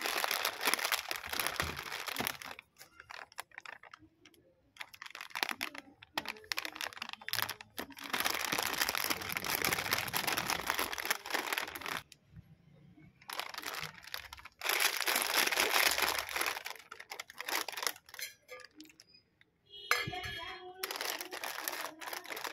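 Plastic snack packet crinkling as it is handled and squeezed in the hands, in bursts of a few seconds with short pauses between.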